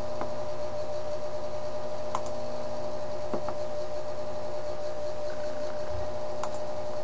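Steady electrical hum and hiss, with four faint clicks spread through it.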